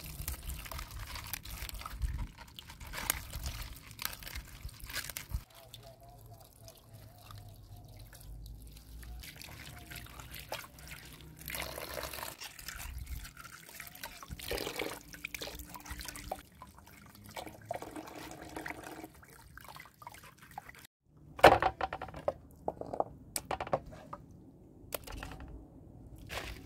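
Water from a garden hose pouring into a metal basin of lettuce, with hands swishing and rubbing the leaves in the water. A few seconds before the end the sound breaks off briefly. It is followed by several sharp knocks and clatters, the loudest sounds here.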